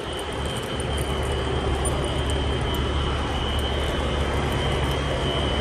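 Wheelock Exceder fire alarm horn sounding continuously, a steady high tone with no pauses, over a steady low engine rumble.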